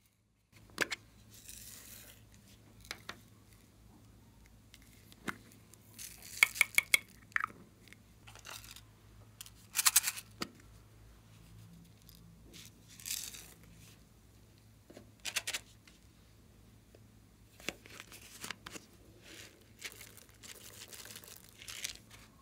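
Plastic popsicle-shaped trays being handled and their foam beads and flower-shaped confetti tipped into a glass dish: scattered short bursts of crinkling and rattling, with a few sharp clicks.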